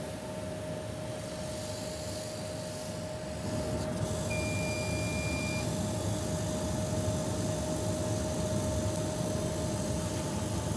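9060 laser cutting machine running while cutting rice straws: a steady whirr of its fans and air-assist blower under a constant hum, growing louder about three and a half seconds in. A brief high whine comes in a little after four seconds.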